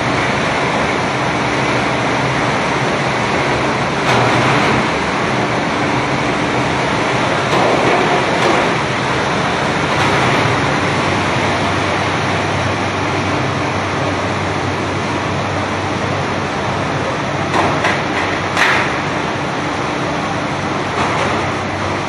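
Tunnel-type high-pressure crate washing machine running: a steady rush of water sprays over the hum of its pump and conveyor. A few short clatters come near the end.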